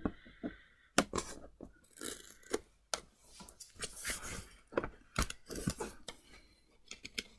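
Hands handling a Microsoft Surface Book 2 keyboard base with its casing open: irregular clicks and taps with rubbing and scraping of its parts, the sharpest click about a second in.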